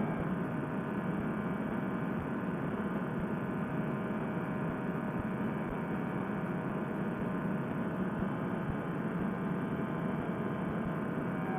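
Fresh Breeze Monster two-stroke paramotor engine running steadily in cruising flight, a continuous drone mixed with wind noise.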